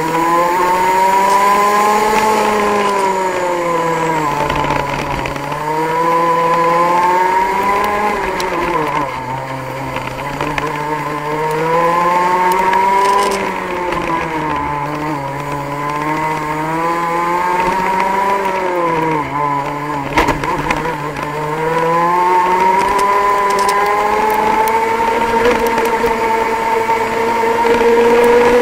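Racing kart engine heard onboard, revving high and then easing off and picking up again several times over a lap, as the kart slows for corners and accelerates out; near the end it climbs steadily in pitch down a straight.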